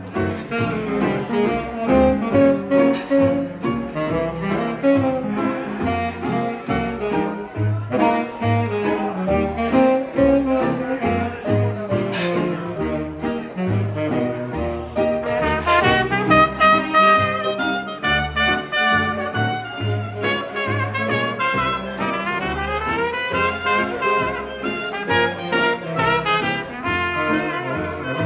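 Small hot-jazz band playing live: saxophone and brass lead lines over a bass keeping a steady beat, with an upward horn run about two-thirds of the way through.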